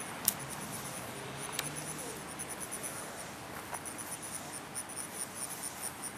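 Insects chirping in a fast, steady, high-pitched pulsing over a background hiss, with a couple of sharp clicks in the first two seconds.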